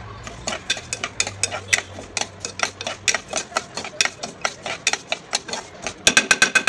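A metal spoon scraping and clicking against an aluminium pressure cooker as broken wheat is stirred and roasted in ghee, at about four clicks a second, with a quicker run of clicks near the end.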